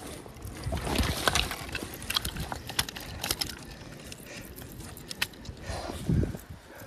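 Scattered clicks and knocks, with heavier thumps about one second in and again about six seconds in, from wading and handling a wooden landing net holding a trout in a shallow rocky stream.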